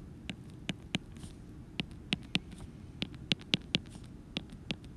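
Stylus tip tapping on a tablet's glass screen: short, sharp, irregular clicks, about three a second, as tick marks and numbers are handwritten. A faint low hum lies underneath.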